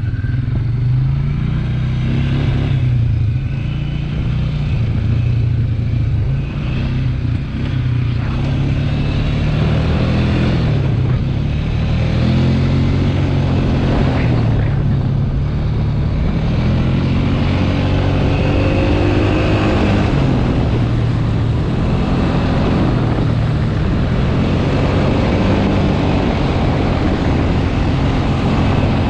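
ATV engine running under way, its pitch rising and falling repeatedly as the throttle and speed change.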